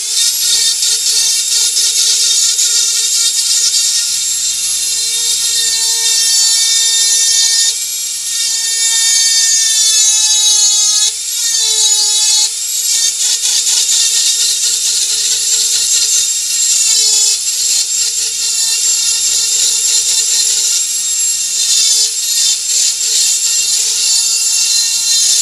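Dremel 4000 rotary tool driving a flex shaft with a silver taper carving burr, running as a steady, high-pitched whine while the burr cuts into wood. Its pitch dips briefly and recovers about halfway through.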